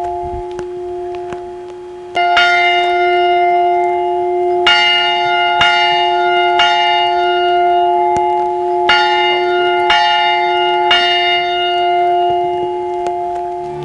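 Bells ringing: a series of strikes roughly a second apart, each tone ringing on into the next, with a louder new peal starting about two seconds in.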